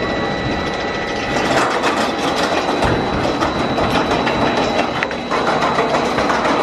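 Morgan mine-train roller coaster train running along its steel track, a continuous rumble with fast clattering wheel noise that grows louder about a second and a half in.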